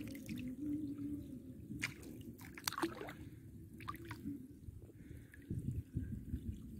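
Muddy ditch water dripping and splashing as someone wades through it, with scattered drips and small splashes, then heavier sloshing near the end.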